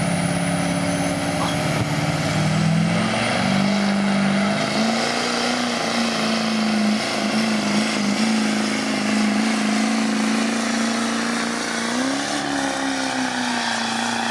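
Duramax diesel V8 pickup engine running hard at high revs under load as it pulls the sled, its pitch stepping up a couple of seconds in and then holding high, with a waver and a further rise near the end.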